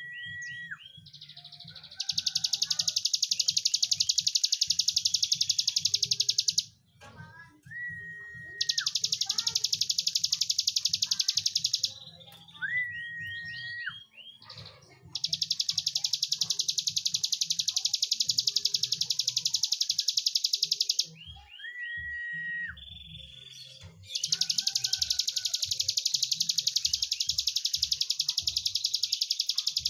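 A caged ciblek gunung (hill prinia) sings four long, very fast, high buzzing trills (the 'breen' that bird keepers prize), each lasting several seconds. Each trill is led in by a short flat whistle and a few quick rising notes.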